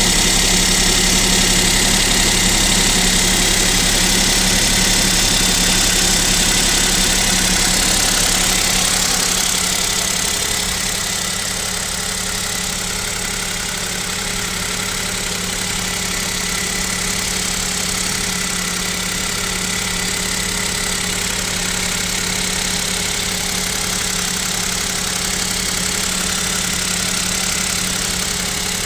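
Kia Picanto 1.0 G3LA three-cylinder engine idling on a cold start, with a knock that the owner blames on the pistons (piston slap). It gets a little quieter about ten seconds in, then runs steadily.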